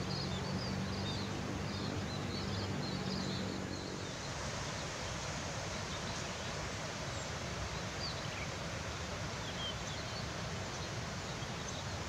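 Open-air ambience over harvested rice fields: a steady noisy background with small birds giving quick, high chirps, many in the first few seconds and a few more later. A low steady hum underneath stops about four seconds in.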